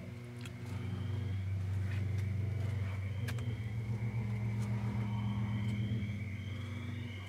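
A low, steady droning hum that grows louder about a second in and eases off near the end, with a faint high steady tone above it and a few light clicks.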